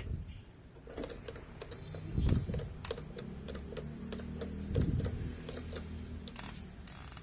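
Small clicks and taps of hands fitting the throttle cable onto a Snapper mower engine, with two dull thumps, about two seconds in and again near the middle.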